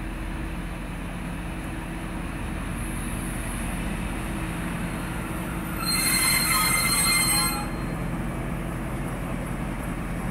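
Diesel-hydraulic locomotive V160 002 with its engine running steadily as it rolls in slowly. About six seconds in, a loud, high metallic wheel squeal lasts about a second and a half.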